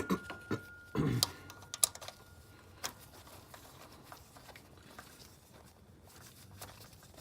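Light clicks and taps of hand tools and engine parts being handled, several sharp ones in the first three seconds, then only faint scattered ticks.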